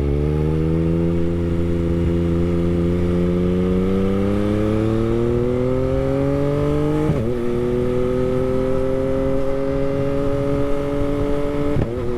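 2021 Yamaha MT-09's inline-three engine through an Akrapovic race exhaust, pulling steadily under acceleration with its pitch slowly rising. It upshifts about seven seconds in and again near the end, each shift a brief break in the note, made with the quickshifter, which gives a pop on the shift.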